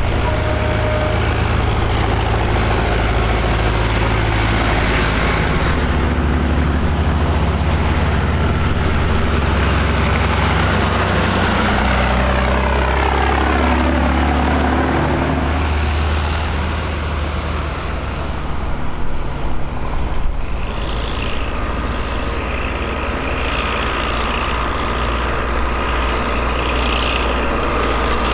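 Several diesel farm tractors driving past one after another, their engines running steadily, with a rising and falling pitch as one passes close by about halfway through.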